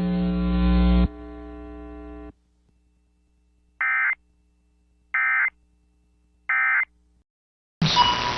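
Steady electrical hum-buzz on the broadcast feed, which drops in level about a second in and cuts off a second later. Then come three short, evenly spaced data chirps, the EAS end-of-message bursts that close the alert.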